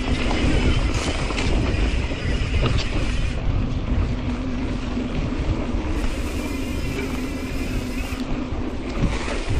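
Mountain bike riding down dirt singletrack: tyre rumble and wind buffeting on the microphone, with a steady low buzz and a few sharp knocks from the bike over bumps.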